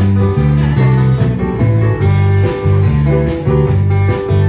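A live country band playing an instrumental passage with no singing: strummed acoustic guitar and keyboard over an electric bass line that steps to a new note about twice a second.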